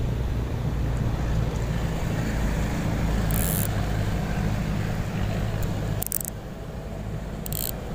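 Steady low engine rumble that eases slightly about six seconds in, with three short high hisses around the middle and near the end.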